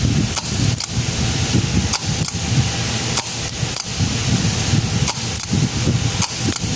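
About a dozen sharp, irregular metallic clicks and snaps as a car starter motor is bench-tested with battery charger clamps. Steady wind rumble on the microphone underneath.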